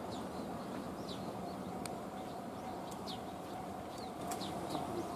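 Small birds chirping: short, quick, falling calls repeated over a steady low outdoor rumble. A faint steady tone joins about two seconds in.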